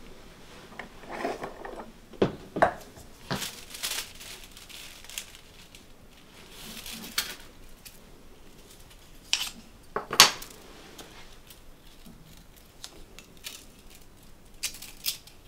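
Hand work at a wooden workbench in uchiwa fan making: scattered taps, clicks and short scrapes of a small knife, bamboo strips and paper being handled. Sharper knocks come a little over two seconds in and about ten seconds in.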